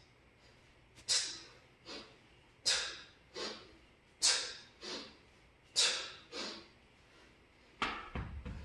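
Sharp, hissing breaths forced out through the nose and mouth with each of four two-handed kettlebell swings, a strong breath and a weaker one every swing. Near the end the kettlebell is set down on the rubber gym floor with a knock and a low rumble.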